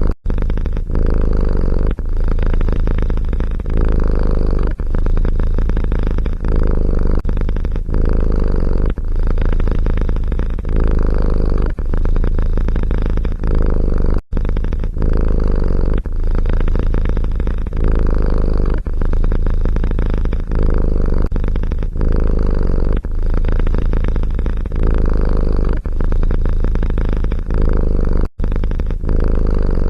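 Domestic cat purring loudly and close up, in a steady pulse of about one breath a second. The sound drops out briefly twice, about halfway through and near the end.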